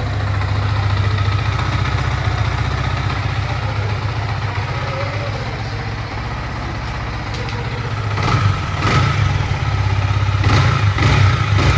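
Yamaha MT-15's 155 cc single-cylinder engine idling steadily, with a few short louder spurts in the last few seconds. It runs with a new timing chain and decompressor fitted and the rockers adjusted, which the mechanic calls showroom condition.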